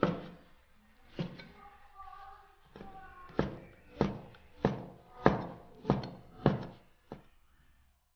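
Chinese cleaver chopping braised pig's ear on a wooden cutting board: one chop at the start, another about a second later, then a steady run of chops about every half second from about three seconds in until just past seven seconds.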